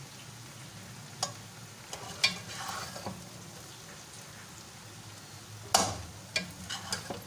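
Metal tongs scraping and clicking against the pot as they dig through cooked pulao rice: a few scattered light scrapes, then a sharp clink near the end. A steady low hum runs underneath.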